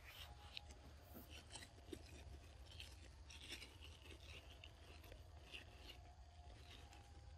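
Near silence: faint outdoor background with a low rumble and scattered soft ticks and rustles.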